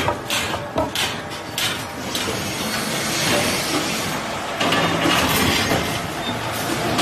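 Eucalyptus veneer peeling line running, a steady mechanical rattle with several sharp knocks in the first two seconds as logs are fed by the automatic loader.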